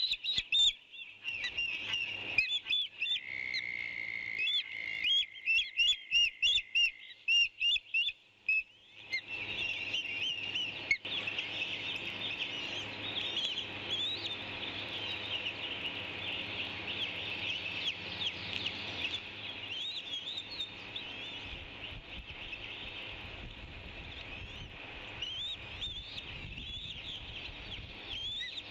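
High-pitched bird chirping: a run of separate short peeps with a steady high whistle-like tone under them for a few seconds, then, from about nine seconds in, dense continuous twittering.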